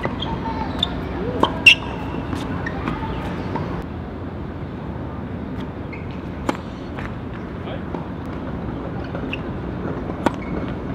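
Tennis balls being struck by rackets and bouncing on the court: a few sharp knocks at irregular gaps, two of them close together about a second and a half in. Underneath runs a steady background noise with faint voices.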